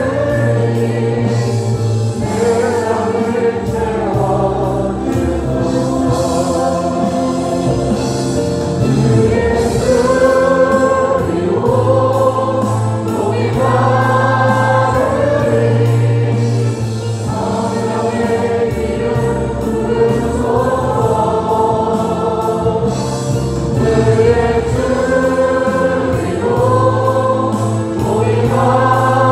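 A choir singing a gospel song, the singing rising and falling in phrases a few seconds long.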